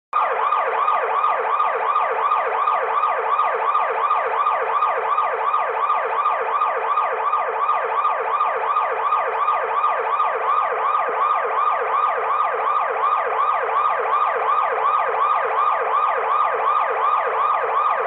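Police car siren in its fast yelp mode: a steady electronic wail sweeping rapidly up and down about four times a second.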